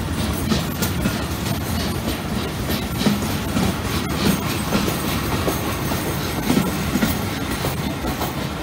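Vintage Centoporte passenger carriages rolling past at low speed, their wheels clattering irregularly over the rail joints with a steady rumble.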